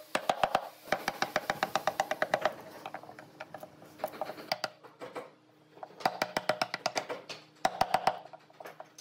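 Quick light hammer taps on a steel chisel driving it into pine to chop out a mortise: sharp knocks at about ten a second, in five short runs with brief pauses between.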